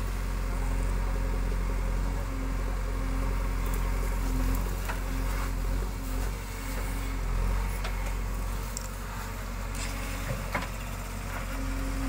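JCB 3DX backhoe loader's diesel engine running steadily while the backhoe arm digs and swings, with a few short knocks now and then.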